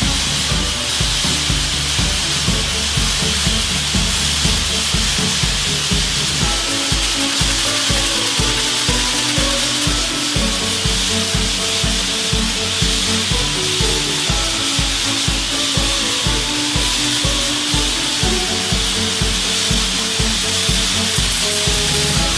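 Abrasive grit blasting against a ship's steel hull: a steady, unbroken hiss of compressed air and grit from the nozzle. Background music with a steady beat and a changing melody plays over it.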